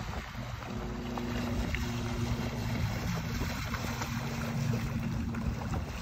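2006 Sea Ray 185 Sport bow rider's sterndrive engine running at low speed, a steady hum that comes in clearly about a second in, with wind buffeting the microphone.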